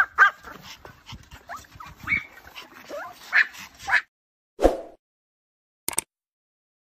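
Pomeranians yipping and whimpering in short, high calls that slide in pitch, for about four seconds. Then a single whoosh, and a short click near the end.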